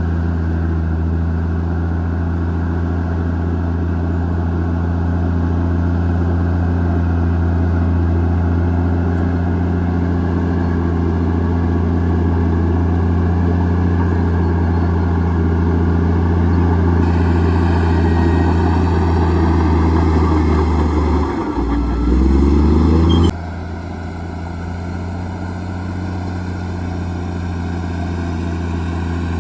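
Komatsu D58E bulldozer's diesel engine running steadily under load. About three-quarters of the way through, the engine note dips and then rises quickly, then changes abruptly back to a steady, slightly quieter run.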